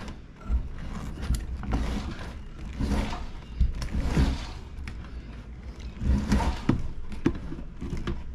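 Irregular knocks, clicks and scraping from hand work with tools and metal parts, over a low rumbling of handling noise.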